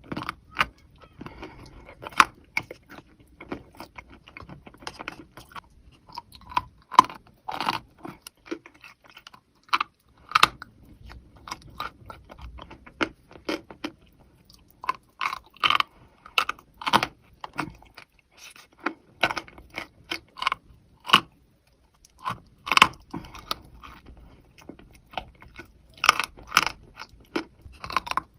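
Wet chalk in thin clay paste being bitten and chewed, making irregular sharp crunches in uneven clusters with a couple of short pauses.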